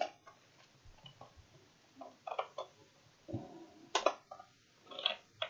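A few scattered clicks and taps from a computer keyboard and mouse, with one sharper click about four seconds in.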